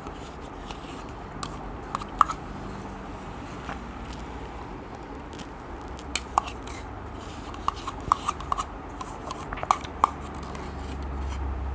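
Spoon scraping and tapping inside a small plastic yogurt cup: scattered light clicks and scrapes, bunched together about two-thirds of the way through.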